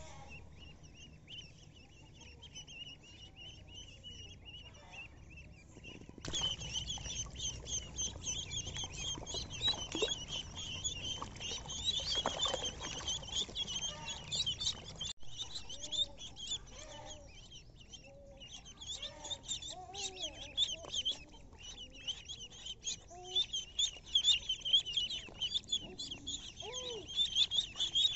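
A crowd of ducklings peeping continuously in quick, high-pitched chirps as they swim in a tub of water. The peeping gets louder about six seconds in, and a few lower, rising-and-falling calls join it later on.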